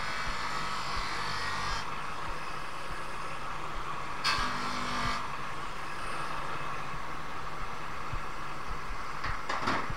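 Polishing lathe running with a sateen-dressed mop, a soft mop loaded with greaseless abrasive, buffing a copper-plated brass radiator shell: a steady hum and hiss, with a brief louder surge about four seconds in. The shell is being cleaned up over every surface before its second copper plating.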